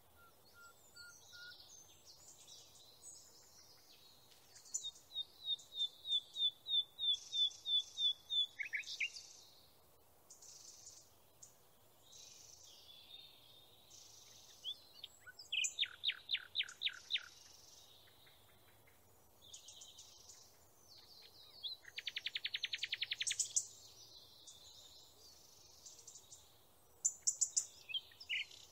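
Songbirds singing: runs of clear, evenly repeated high notes and fast trills in separate phrases a few seconds apart, over a faint steady hiss.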